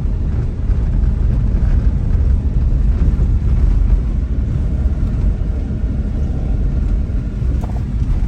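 Steady low rumble of a car driving, heard from inside the cabin, with road noise from a rough, bumpy, unfinished road surface.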